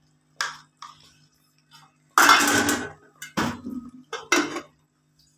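A metal spoon knocks and scrapes in an aluminium pot of thick cooked daliya. Then the pot's aluminium lid clatters and clanks as it is set on the rim, with the loudest clatter a little after two seconds.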